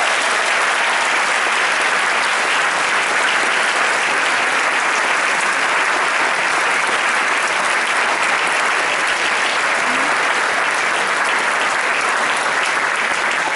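Audience applauding loudly and steadily, a dense clapping that swells up just as the prize winner's name is called.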